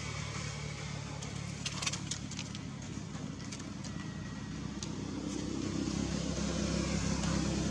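A steady low engine hum that swells louder in the second half, with a few brief clicks about two seconds in.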